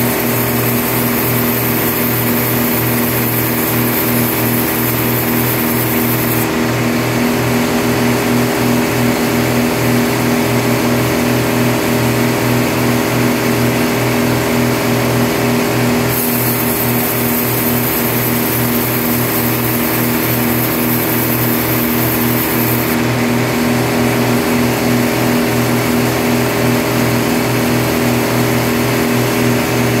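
Band sawmill running with a steady motor and blade hum as the band blade cuts through a thick block of wood. A high hiss comes in twice, for several seconds each time.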